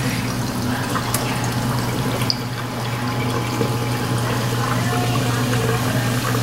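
Metal serving spoon scraping and clicking against a skillet as stir-fry is dished up, a couple of sharp clicks about one and two seconds in, over a steady hiss and low hum.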